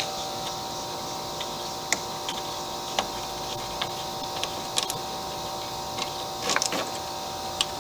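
Scattered light clicks and taps of hand work on a lawnmower's cable and parts, over a steady background hum with several fixed pitches.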